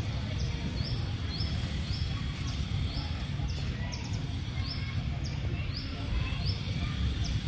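Outdoor ambience: a steady low rumble of background noise, over which a short high chirp repeats evenly about twice a second.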